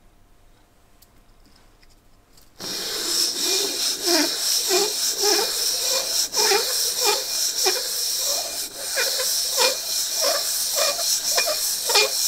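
Cast iron piston ring in an aluminium holding fixture being rubbed back and forth on wet and dry abrasive paper in a figure-of-eight, lapping it down to thickness. After a quiet start it begins abruptly a couple of seconds in: a steady rasping hiss with a squeaky rise and fall about twice a second as each stroke turns.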